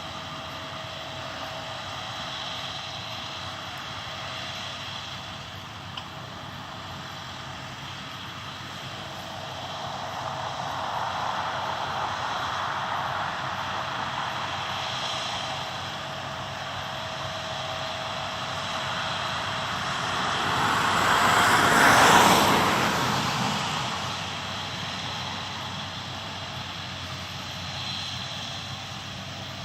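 Steady engine drone, swelling as a vehicle passes close by, loudest about two-thirds of the way through, then fading again.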